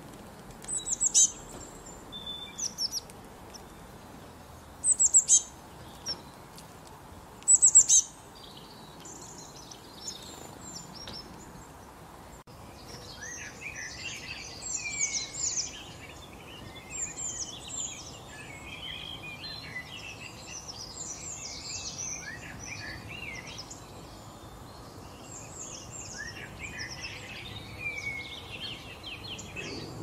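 Small songbirds chirping: three short bursts of high, sharply falling chirps in the first eight seconds. From about twelve seconds on, a busier chorus of overlapping chirps and trills from several birds follows.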